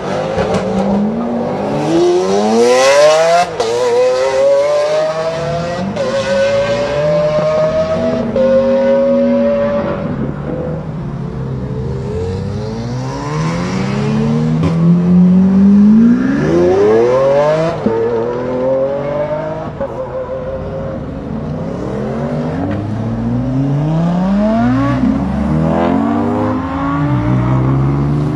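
Sports cars, among them a Lamborghini Aventador's V12, accelerating hard one after another. Each engine note sweeps up in pitch and drops back at every upshift, with the loudest run of revs about halfway through.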